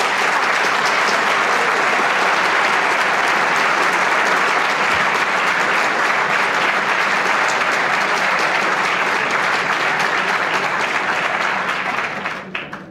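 Audience applauding steadily in an auditorium, fading out near the end.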